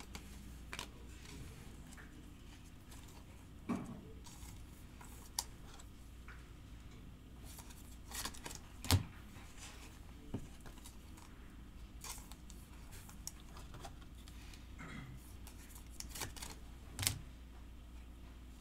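Bowman Chrome baseball cards being handled, slid against each other and set down on stacks on a table: scattered soft clicks and taps, the sharpest about 9 s and 17 s in, over a low steady hum.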